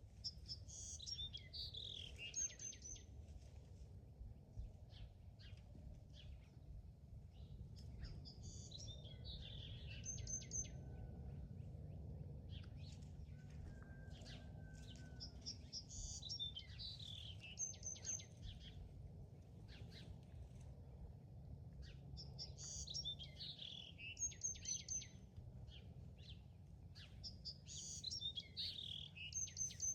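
A songbird repeating the same short song about every six to seven seconds, five times in all: each phrase is a quick run of notes falling in pitch and ends on a short high note. A steady low rumble runs underneath.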